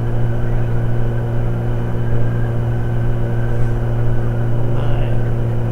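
Kawasaki Z900 inline-four engine running at steady, unchanging revs while the motorcycle is ridden, with a low, even exhaust note.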